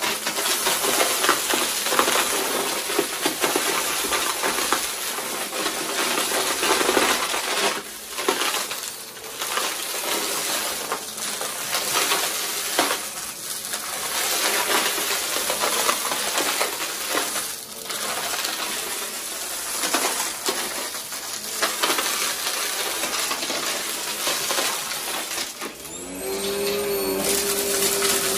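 Vacmaster upright bagless vacuum cleaner sucking up coins, confetti and small debris from a carpet: a dense, continuous crunch and clatter of coins and bits rattling up through the machine, swelling and dipping as it is pushed back and forth. Near the end, a steady motor hum comes through.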